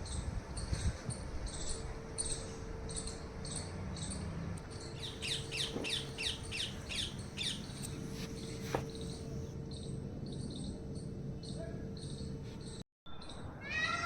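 Birds chirping: a high, regular chirp repeating about twice a second, with a quick run of falling notes midway, over a low rumble. Near the end the sound drops out for a moment and falling chirps resume.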